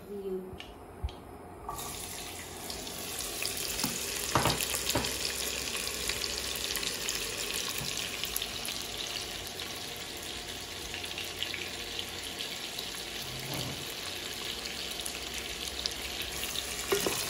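Sliced onions sizzling in hot oil in a non-stick pot, a steady hiss that starts suddenly about two seconds in as they go into the oil. Two knocks a few seconds in.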